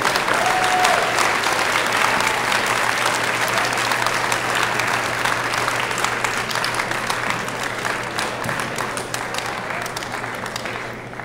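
Large crowd applauding. The clapping is loudest about a second in and slowly dies down toward the end.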